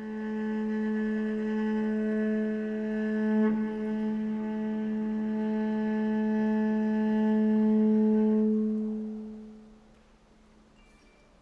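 Cello drone: one long bowed note held steady for about nine seconds, then fading out.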